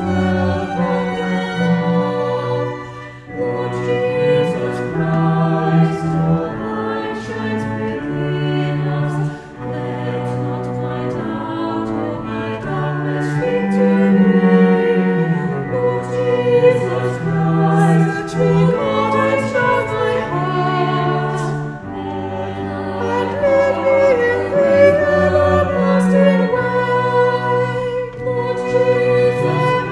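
Choir singing a slow Taizé chant in long held notes over a sustained instrumental accompaniment.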